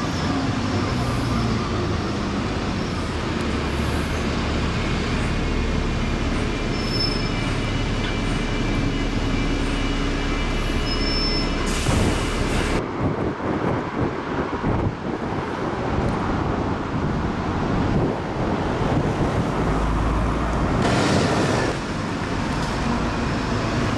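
Double-decker buses running along a town street with general road traffic, a steady low engine hum. The sound changes abruptly about halfway through and again near the end.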